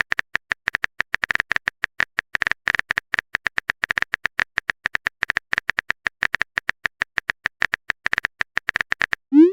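Phone-keyboard typing sound effect: a quick, irregular run of short clicks, several a second, as a message is typed out. Near the end comes a short rising blip.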